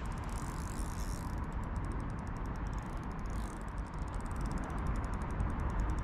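Steady rushing noise of wind and a fast-flowing swollen river, strongest in the low end.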